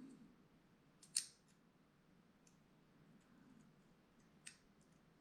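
Small hard parts of a Benchmade Mini Bugout folding knife clicking as its hard-anodized aftermarket handle scale is fitted onto the other side during reassembly: one sharp click about a second in, a smaller one near the end, and a few faint ticks between.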